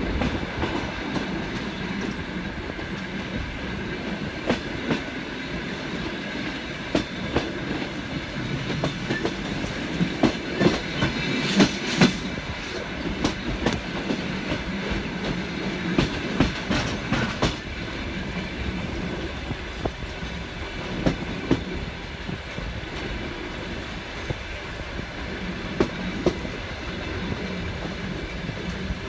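Passenger train wheels running on the track: a steady rumble with irregular clicks and clacks over the rail joints. A dense cluster of sharp clacks comes about eleven to twelve seconds in, and another shorter run comes around sixteen to seventeen seconds.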